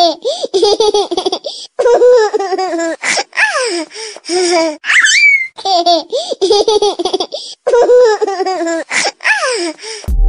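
Baby-laughter ringtone: a baby laughing in short giggling bursts with high squeals, the same laugh recording looping. Right at the end it cuts to an electronic beat.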